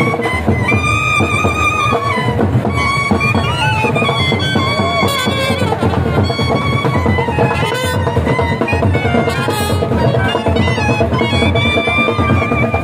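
Live band music: trumpets play a wavering, gliding melody over steady drumming.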